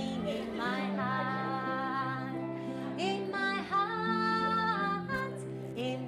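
A woman singing with acoustic guitar accompaniment, holding several notes steadily.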